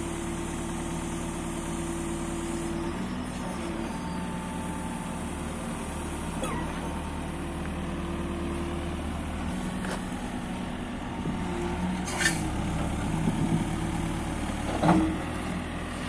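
Caterpillar 432F2 backhoe loader's four-cylinder diesel engine running as the machine drives, its engine speed shifting a few times. A brief hiss comes about twelve seconds in, and a short louder sound near the end.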